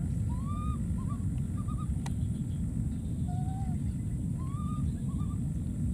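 A baby monkey's faint short cooing calls, rising and falling, in two bunches early on and near the end with a lower one in the middle, over a steady low rumble that is louder than the calls. A single click about two seconds in.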